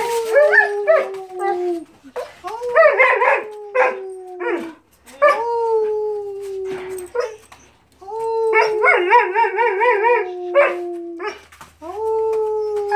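A shepherd-type dog howling: about five long howls, each sliding slowly down in pitch, with short breaks between them and a wavering, yodel-like stretch in some.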